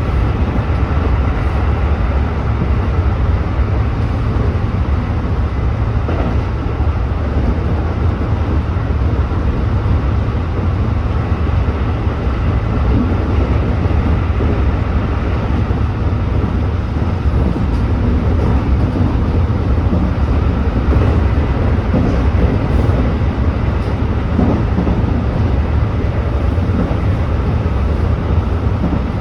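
Tobu 8000-series electric train (car 8111) running at speed: a steady, loud rumble of wheels on rail and running gear.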